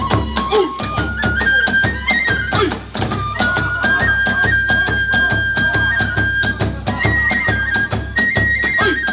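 Kagura hayashi accompaniment: a bamboo transverse flute (fue) plays a stepping melody with long held high notes over a fast, steady beat of drum and small hand cymbals, about four to five strokes a second.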